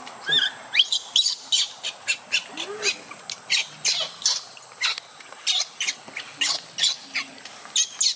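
Baby macaque crying in rapid, short, high-pitched squeals, about three a second, a few rising and falling in pitch near the start.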